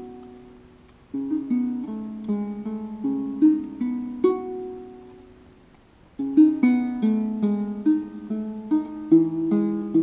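Ngoni, a West African harp-lute with a gourd body, plucked in short melodic phrases, each note ringing and fading. One note dies away slowly before a busier run of notes starts about six seconds in.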